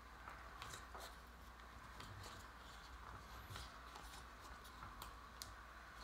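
Faint clicks and rustles of small craft-kit parts handled by fingers on a table, over a steady room hiss and hum.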